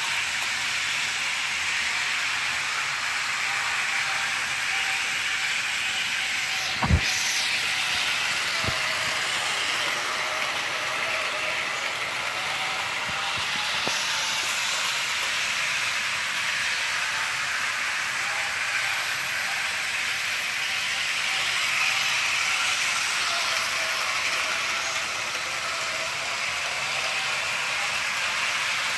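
HO scale model trains running on track: a steady rolling rattle of small wheels on the rails, with a faint motor hum that wavers in pitch. One sharp knock comes about seven seconds in.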